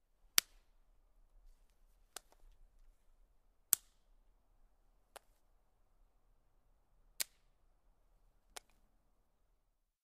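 Six sharp snaps of twigs breaking, spaced about one and a half seconds apart. The first, third and fifth are the loudest, and a little crackle follows the second.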